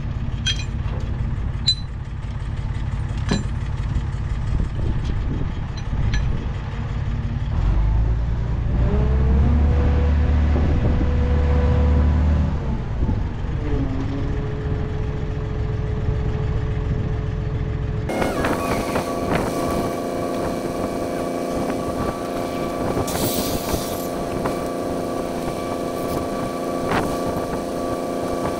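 Galion crane's engine running. It speeds up for a few seconds about a third of the way in while the track roller is lifted on its chain, then settles back to a steady idle, with a few sharp metallic clicks.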